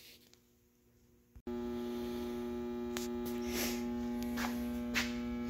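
Near silence, then about a second and a half in a heavy-duty battery charger/booster switches on and hums steadily from its transformer, with a few faint clicks over it.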